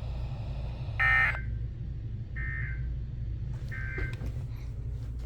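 NOAA Weather Radio's EAS/SAME digital data tones: three short buzzy bursts about a second apart, the first loudest. This is the end-of-message code that closes the warning broadcast. A steady low radio hum runs underneath.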